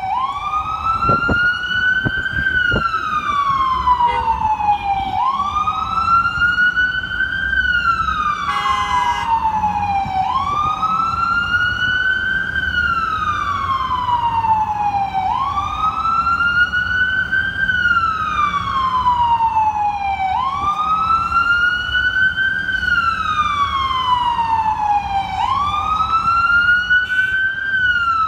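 Ambulance siren on a slow wail, rising and falling in pitch about once every five seconds, over the low rumble of traffic.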